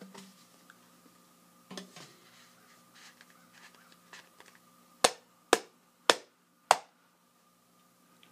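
Drumsticks clicked together four times, about half a second apart, after a few softer handling knocks.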